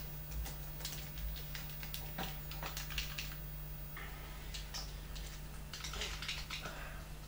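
Typing on a laptop keyboard: irregular clusters of keystroke clicks over a steady low hum.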